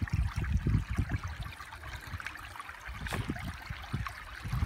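Shallow creek water trickling among rocks, with irregular low thuds and rumbles over it.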